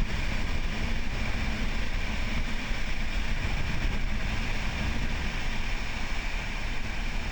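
Wind buffeting the microphone: a steady, unbroken rumble.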